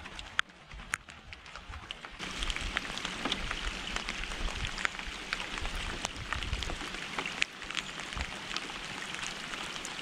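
Rain falling on a lake: a steady hiss of drops on the water, dotted with sharp ticks of single drops, getting louder about two seconds in.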